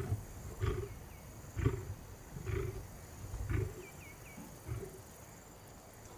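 Male African lion giving a series of low, rhythmic growls, about one a second, dying away about five seconds in: a warning growl from a lion guarding his kill.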